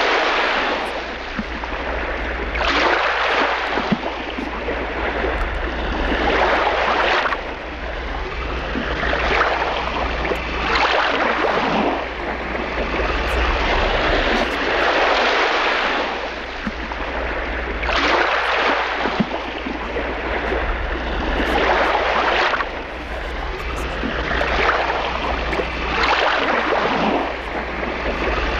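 Water lapping and splashing against the hull of a small boat, in regular swells every second or two, over a steady low hum.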